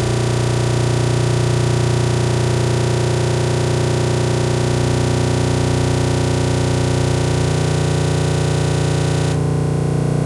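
Dense, steady electronic drone: many held tones layered with noise, at an even level. About nine seconds in, the upper part of the sound drops away abruptly, leaving a lower, thinner drone.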